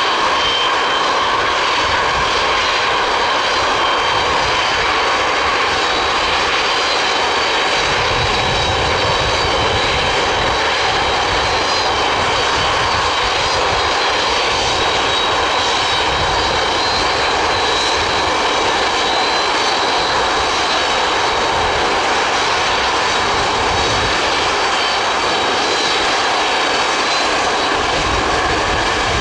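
The six turbofan engines of an Antonov An-225 running as the aircraft taxis past, a steady loud jet roar with a high turbine whine over it. A deeper rumble comes and goes from about eight seconds in.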